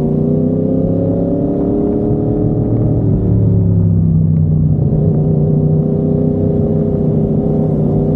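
Yamaha MT-10's crossplane inline-four running through an SC Project carbon-titanium exhaust while riding, its note holding and climbing a little, then easing off about three seconds in and settling at a steady cruising note.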